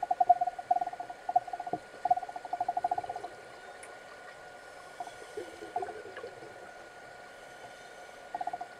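Underwater sound in a swimming pool: a mid-pitched tone pulsing rapidly in several short runs, most of them in the first three seconds, with a few brief runs later, over a faint steady hum.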